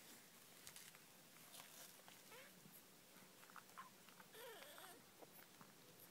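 Puppies nursing, faintly heard: scattered soft clicks of suckling and two short squeaky whimpers, about two and a half and four and a half seconds in.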